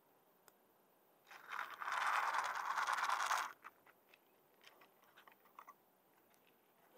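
A loud scraping rasp of a plastic food tray being pushed over stone paving, lasting about two seconds and starting a little over a second in. Afterwards come a few faint clicks of a cat crunching dry kibble.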